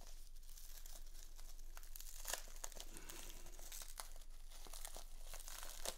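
Plastic bubble wrap crinkling and crackling as it is unwrapped by hand, with many irregular sharp crackles.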